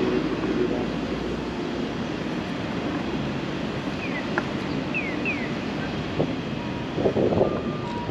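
Steady city traffic noise with wind on the microphone. A few short high chirps come about halfway through, and a brief louder sound near the end.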